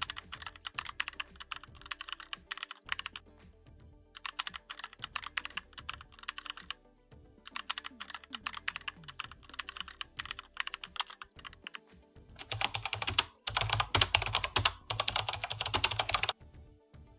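Fast keyboard typing clicks in four bursts, the last one loudest, over faint background music.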